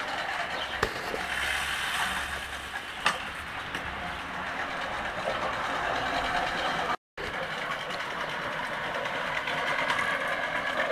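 Manual push reel mower whirring steadily as its spinning cylinder blades cut grass while it is pushed across the lawn, with a couple of sharp clicks early on. The sound cuts out completely for a moment about seven seconds in.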